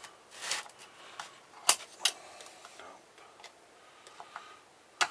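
Scattered sharp clicks and knocks of a hand tool against the metal parts of a water purifier being taken apart, with the loudest knocks about a second and a half in, again half a second later, and near the end, and lighter ticks between.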